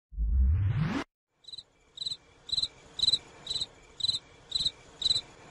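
A rising whoosh in the first second, then a cricket chirping in short trills about twice a second.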